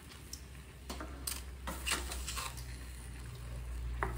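Wooden spoon stirring a thick mix of beans, corn and pasta in a stainless steel pan, with a few short scrapes and knocks against the pan over a low steady hum.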